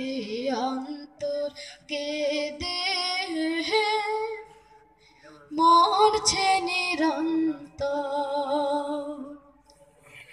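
Bengali Islamic gojol sung unaccompanied, in long held sung phrases with a short break about halfway through and another near the end.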